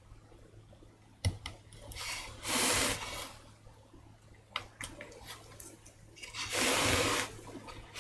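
Carving knife cutting into a woodblock, with small sharp clicks from the blade, the strongest about a second in. Twice, about two and a half and six and a half seconds in, a short hissing rush of noise lasting around half a second is louder than the cuts.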